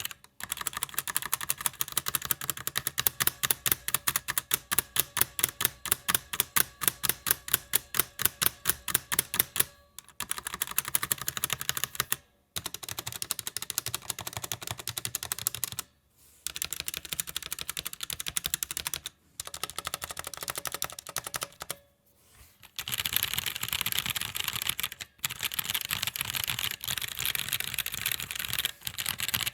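Typing on a Roccat Vulcan 122 AIMO mechanical keyboard with Titan Brown tactile switches and ABS keycaps. For about the first ten seconds one key is struck fast and evenly, about five times a second. After that come bursts of ordinary typing separated by short pauses.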